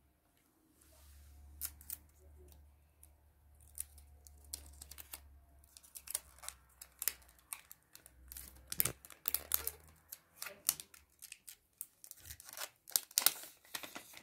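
Clear plastic packaging crinkling and rustling as a smartphone is handled and slid out of its plastic sleeve, in irregular sharp crackles that grow denser and louder toward the end.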